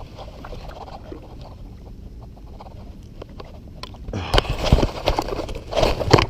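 A large catfish being landed by hand: low rustling and scattered knocks, then about two seconds of loud thrashing and splashing starting about four seconds in.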